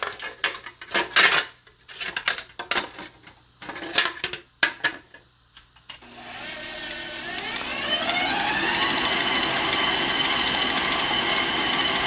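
A clear plastic pouring shield clicking and knocking as it is fitted onto a stand mixer's steel bowl. About halfway through, the KitchenAid stand mixer's motor starts, its whine rising in pitch for about two seconds, then runs steadily as the flat beater creams butter and sugar.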